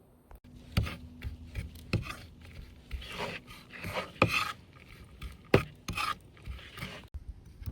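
Rasping, scraping strokes and rubbing, broken by several sharp knocks; the loudest knocks come about 4 and 5.5 seconds in.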